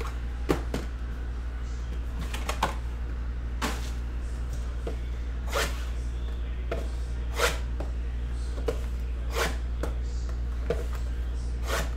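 A dozen or so scattered light clicks and taps, from hands handling boxes and objects at a desk, over a steady low electrical hum.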